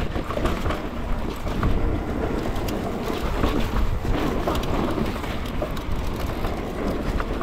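Pole Voima mountain bike rolling down a dry dirt singletrack: steady tyre noise over dirt and loose gravel, with wind buffeting the helmet or handlebar camera's microphone. Light clicks and rattles from the bike come through now and then.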